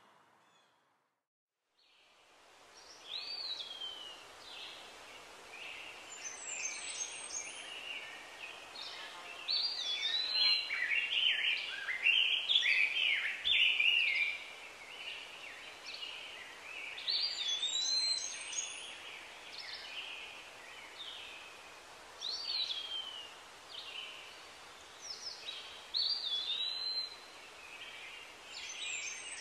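Several birds calling and singing over a steady outdoor hiss: short whistled notes and quick swooping calls, some overlapping, busiest about a third of the way through. The sound fades in after about two seconds of silence.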